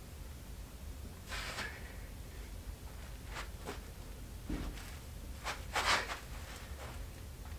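A man breathing hard during push-ups: a series of short, breathy exhales and intakes, a few scattered through, the loudest about six seconds in, over a low steady room hum.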